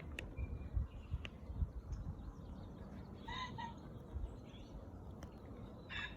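Faint two-note crowing call of a pheasant, heard twice, about three seconds apart, over low rumbling on the microphone.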